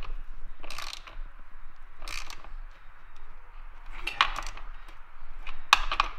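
Hand ratchet tightening a chainsaw bar nut: four short bursts of ratchet clicking about a second and a half apart, one on each swing of the handle.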